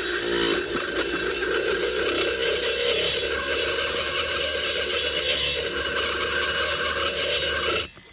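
Handheld rotary grinder with a cutting bit running at high speed, grinding metal out of a chainsaw cylinder's lower transfer port. The tool runs steadily and stops abruptly near the end.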